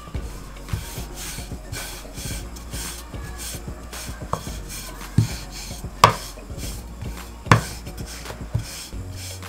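Long, thin wooden rolling pin rolling over a sheet of dough on a wooden board, swishing about twice a second as it is pushed back and forth. Three sharp knocks of wood on wood come in the second half, the loudest about six seconds in.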